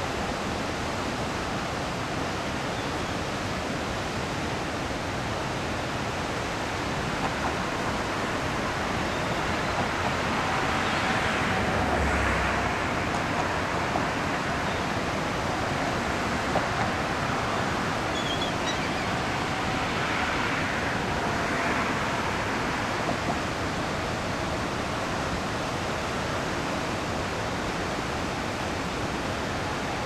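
Steady rush of water from a dam spillway and the river current below it: an even, unbroken hiss that swells slightly twice.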